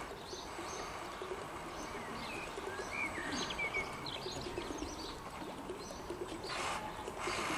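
Birds chirping in short, quick notes that glide up and down, over a steady outdoor hiss. A short rush of noise comes near the end.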